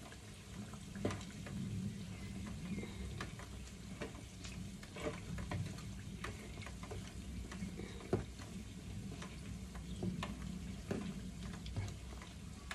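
A ladle stirring a thick mixture in a non-stick wok, with irregular knocks and scrapes of the ladle on the pan and a sharp knock about a second in and another about eight seconds in. A faint frying or bubbling sound from the cooking food runs underneath.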